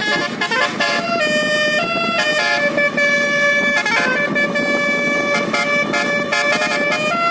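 Basuri telolet horn, the multi-tone musical air horn fitted to Indonesian buses, playing a melody. It sounds held notes that step up and down in pitch, several tones at once.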